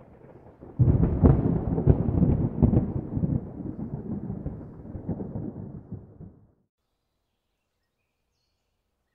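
Intro sound effect under the opening title card: a deep rumble with crackles, like thunder, that starts loud about a second in and dies away over about five seconds.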